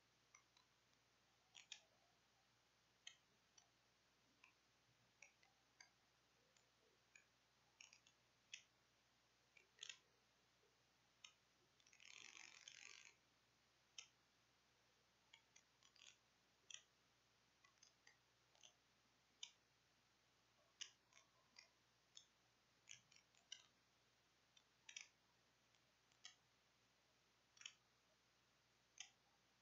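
Near silence broken by faint, irregular clicks, roughly one a second, and one short burst of noise a little before halfway.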